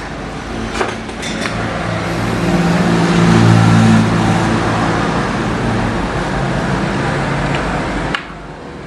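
A passing road vehicle's engine, building up to its loudest about three to four seconds in, holding, then dropping away suddenly a little after eight seconds.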